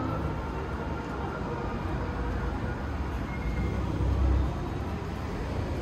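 Road traffic going by on the street: a steady low rumble of engines and tyres that swells briefly about four seconds in.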